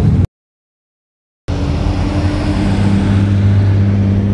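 A car engine running with a steady low hum that swells a little midway, broken near the start by about a second of dead silence where the recording drops out.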